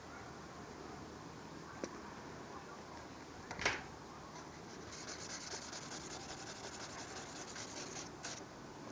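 Rubbing on lined notebook paper as eraser crumbs are brushed off: one loud swipe about three and a half seconds in, then a run of quick rubbing strokes from about five to eight seconds.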